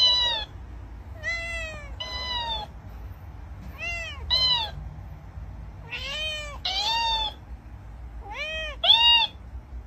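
A cat meowing over and over, each meow answered at once by a higher-pitched copy from a talking, dancing cactus toy that records and plays back what it hears. The calls come in pairs about every two seconds, over a faint low steady hum.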